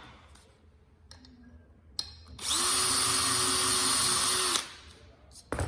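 A click, then a power drill running at a steady speed for about two seconds as it drills a hole through a piece of aluminium, then winding down.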